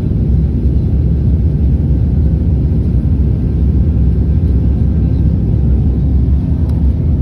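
Jet airliner cabin noise in flight: a steady low rumble of engines and rushing air, heard from inside the cabin by a window over the wing.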